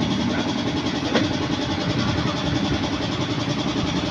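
Motorcycle engine of a tricycle idling steadily, with a single sharp click about a second in.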